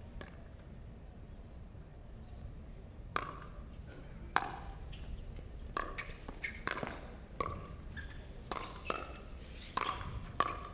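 A pickleball rally: about a dozen sharp pops of paddles striking the hard plastic ball, sparse at first and coming faster from about halfway through.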